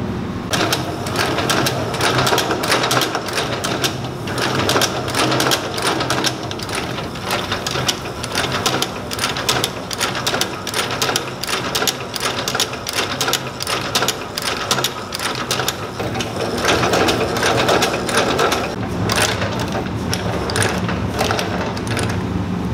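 Industrial shoe-stitching machine sewing through a boot's insole and sole layers: a fast, even clatter of needle strokes over a steady motor hum.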